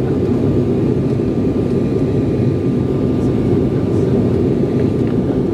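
Steady cabin roar of a jet airliner climbing after takeoff: engine and airflow noise heard from inside, deep and even, with a faint steady high tone over it.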